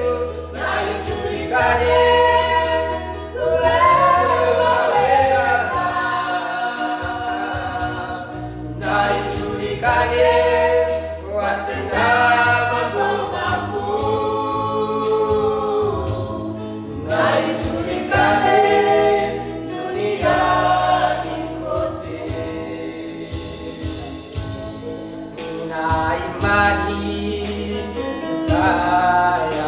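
Gospel song with a choir singing over a steady bass accompaniment.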